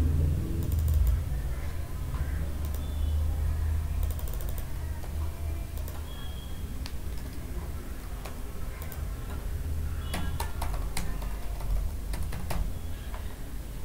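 Computer keyboard typing: scattered key clicks, then a quick run of keystrokes about ten seconds in, over a steady low rumble.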